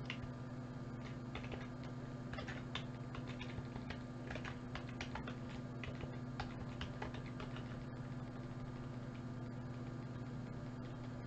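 Scattered sharp clicks of a computer mouse and its scroll wheel while a long spreadsheet list is scrolled, thickest in the middle stretch, over a steady low electrical hum.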